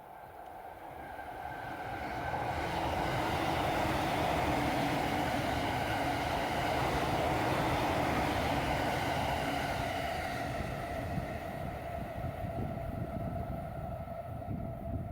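An electric train passes on the tracks close by. It grows louder over about three seconds, runs at its loudest for several seconds with a steady whine over a low rumble, then fades as it moves away.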